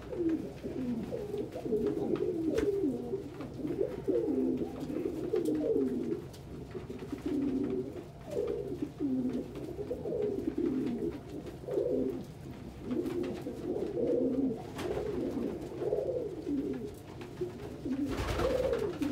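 Several domestic pigeons cooing over one another in low, overlapping rolling coos. There is a short noisy burst near the end.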